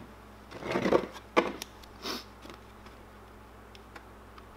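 Handling noise from a plastic RC truck body and a vinyl decal being pressed onto it: a rustle about a second in, a sharp click just after, then a brief crinkle, with faint ticks later.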